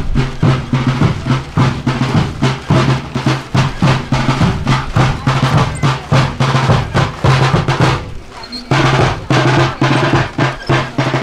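Snare drum and bass drum of a marching brass band beating a rapid march cadence with rolls. The drumming breaks off briefly a little before the end, then starts again.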